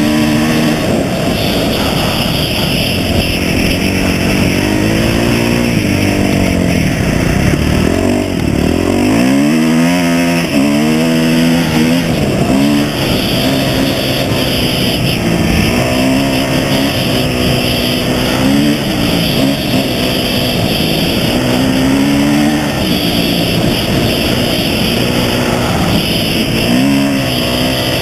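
Off-road vehicle engine running under way, its pitch climbing and falling repeatedly with the throttle, dropping low about nine seconds in before climbing again.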